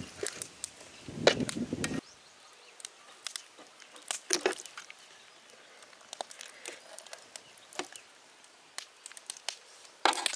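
Handling noises of marinated rabbit carcasses being worked with wire hooks on a steel tray: a denser rustling for the first two seconds, then scattered clicks and small knocks, a louder one about halfway and a short cluster near the end.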